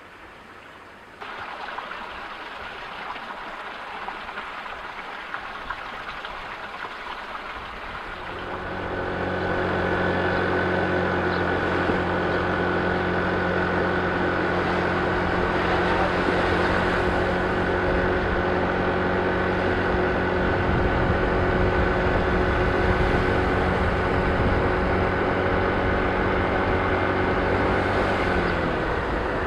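Kymco scooter engine running at a steady cruise while riding, with wind and road noise. It starts as a faint hiss, swells about eight seconds in into a steady engine hum and holds, easing slightly near the end.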